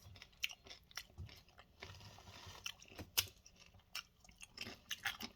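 A person chewing and crunching tortilla-chip nachos topped with melted cheddar and salsa: irregular crisp crunches and clicks.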